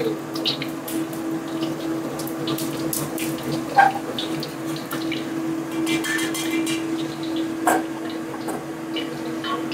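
Hot oil sizzling and bubbling in a wok during deep-frying, with a steady hum beneath. Scattered sharp clicks and pops, two of them louder about four and eight seconds in.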